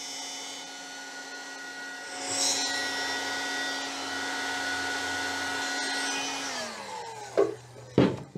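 Electric heat gun running with a steady fan whine as it warms a plastic bucket, louder from about two seconds in. Near the end it is switched off and the fan winds down, falling in pitch, then come two sharp knocks, the second the louder.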